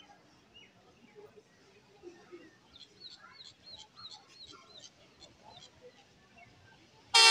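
Faint platform background with a bird chirping a quick run of repeated notes in the middle. Near the end a diesel locomotive's air horn sounds suddenly and loudly, signalling the train's approach into the station.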